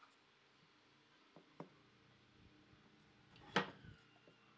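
Wooden strips being set upright against the edge of a round wooden table base: two light clicks about a second and a half in, then a sharper wooden knock about three and a half seconds in, followed by a couple of faint ticks.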